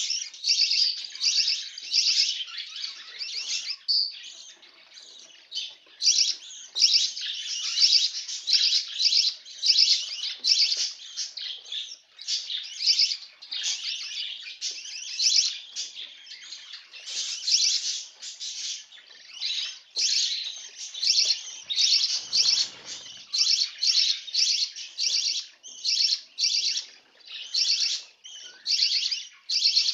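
Birds chirping: a dense, continuous run of short, high, rapid calls several times a second, with a brief lull about four seconds in.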